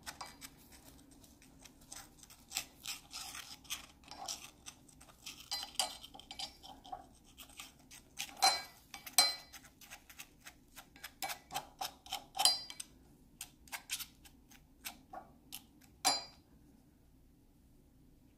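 Metal palette knife scraping and clicking against a small cast-iron skillet as it stirs and spreads acrylic paint, in irregular strokes a few times a second. The strokes stop about two seconds before the end, leaving faint room hum.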